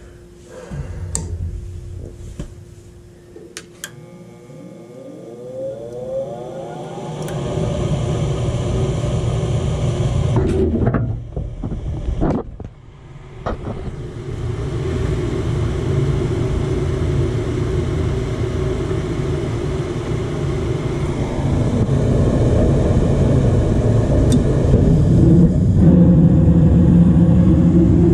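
Luxaire gas furnace starting up on a new control board: a few relay clicks, then the draft inducer motor spinning up with a rising whine and settling into a steady running rumble that grows louder toward the end.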